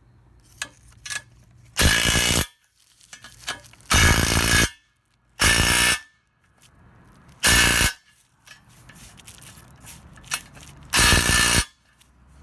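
Impact wrench hammering nuts tight in five short bursts of about half a second each, with small clicks between them.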